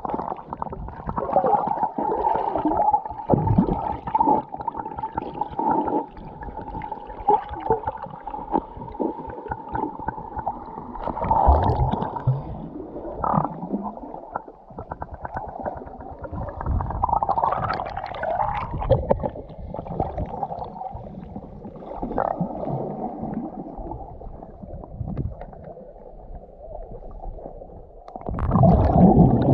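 Muffled underwater sound heard through a submerged action camera: water rumbling and gurgling against the mic, with a steady hum for roughly the first ten seconds. It gets louder with sloshing near the end.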